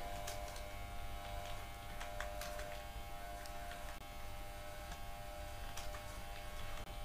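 Computer keyboard keystrokes: scattered, irregular clicks of slow typing over a steady electrical hum and buzz.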